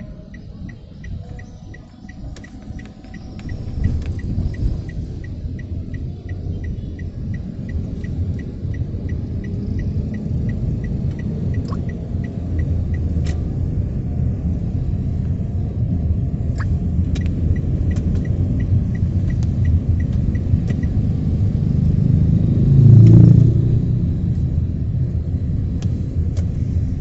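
Car driving, heard from inside the cabin: a steady low rumble of engine and tyres that grows louder about four seconds in as the car pulls away. A faint regular ticking runs through most of it, and a brief louder swell comes near the end.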